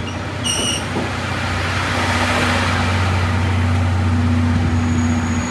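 Steam-hauled passenger coaches rolling slowly into the station past the platform, with a steady low hum and rolling noise growing louder as the rear coach comes by. A brief high beep sounds about half a second in.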